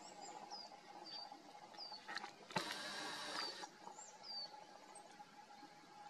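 Small songbirds giving short, high, falling chirps, about ten scattered through. A little before halfway a knock is followed by a hiss that lasts about a second.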